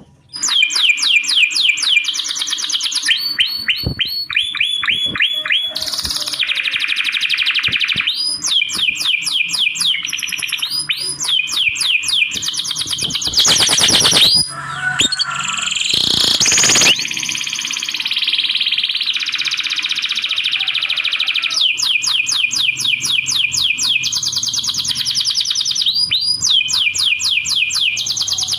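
Lovebird chirping in fast runs of high, repeated notes, nearly without pause, with two short bursts of noise about halfway through.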